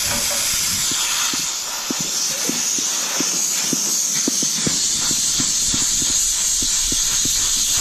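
Pressurised factory gas charge hissing out of a new split air conditioner's indoor-unit copper refrigerant pipe as its sealing cap is loosened with a wrench: one loud, steady hiss. The strong pressure is the sign that the coil and pipes came sealed, with no leak.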